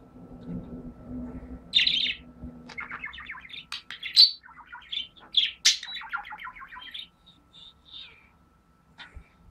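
Budgerigar chirping and warbling: a loud chirp about two seconds in, then a quick run of chattering notes for several seconds, trailing off into a few soft calls.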